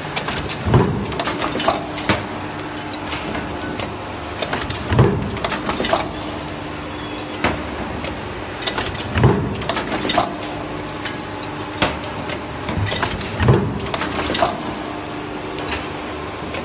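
Stamping press running a multi-station transfer die, cycling four times about every four seconds. Each stroke lands with a deep thump, with lighter clicks and knocks between strokes, over a steady machine hum.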